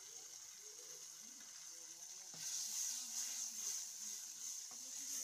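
Onion and tomato masala with freshly cracked eggs sizzling in a steel wok, a steady hiss. It grows louder about halfway through as a wooden spoon stirs the pan.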